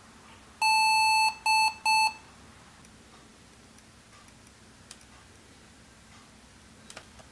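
Lenovo ThinkPad R61 laptop's built-in speaker sounding a BIOS POST beep code: one long beep, then two short beeps in quick succession. This one-long-two-short pattern is the error code for a display or graphics failure, here with the screen staying black.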